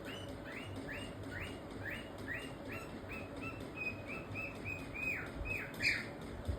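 Cockatiel calling in a rapid series of short chirps, about two or three a second, turning into a few longer calls that sweep down in pitch near the end.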